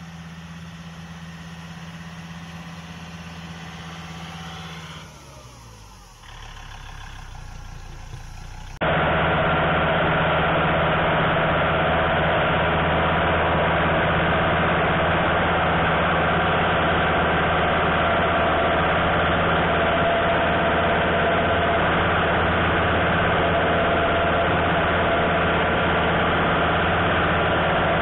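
Kubota L3750 tractor's diesel engine running. It is heard farther off at first, its pitch dropping and picking up again about five seconds in. From about nine seconds in it is loud and close, running steadily as the front hay sweep pushes a load of loose hay.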